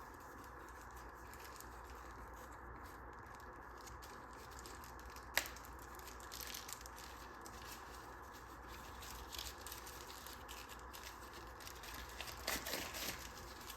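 Packaging being opened and handled: faint, scattered crinkling and rustling, with one sharp click about five seconds in.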